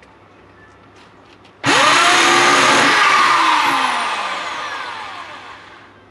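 An electric power tool's motor switched on, spinning up with a quick rising whine and running at full speed for about a second. It is then released and winds down with a falling whine over about three seconds.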